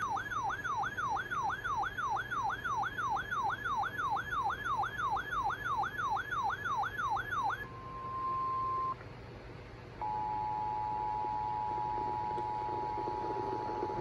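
Weather radio alert: the receiver's electronic siren warbling up and down about three times a second, announcing an incoming emergency alert. It stops about seven and a half seconds in, a single steady tone sounds for about a second, and from about ten seconds in the steady two-tone EAS attention signal plays, which precedes the spoken alert message.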